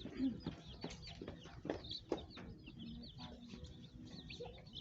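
Many Golden Comet baby chicks peeping continuously, a dense chorus of short, high, overlapping chirps.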